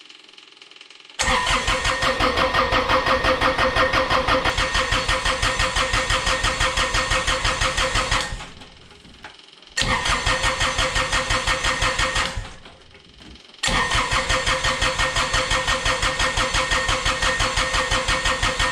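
Electric starter cranking a Kubota D902 three-cylinder diesel in three bursts with short pauses, the pulses of the compression strokes coming evenly without the engine firing. The injection lines are off, so the pump only spurts fuel out of its delivery valves as the engine turns over.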